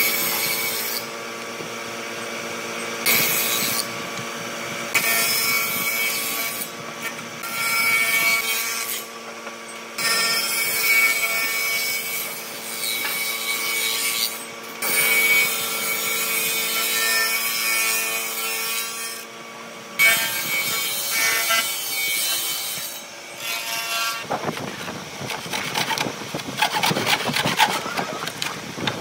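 Stationary woodworking machine running with a steady hum, its cutter biting into pine boards in repeated noisy passes. Near the end, a hand saw cuts through small wooden blocks in rapid back-and-forth strokes.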